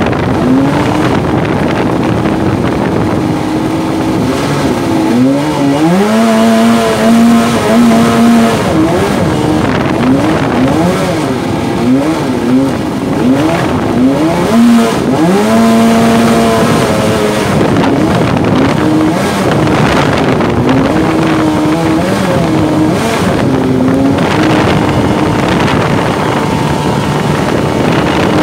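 Mini jet boat's engine running hard and revving up and down, its pitch rising about five seconds in and swinging up and down repeatedly through the middle before settling steadier near the end.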